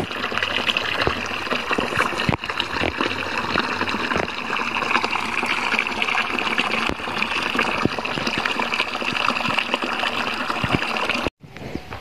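Thin stream of water pouring from a metal pipe spout onto a flat rock, a steady trickling splash that cuts off abruptly just before the end.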